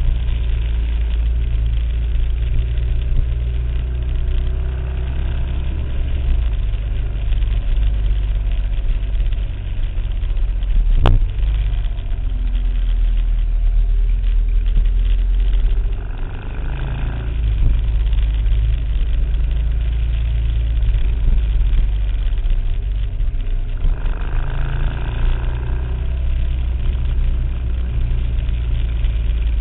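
A vehicle engine running at low speed with a deep, steady rumble, as it is ridden slowly. A single sharp click sounds about eleven seconds in.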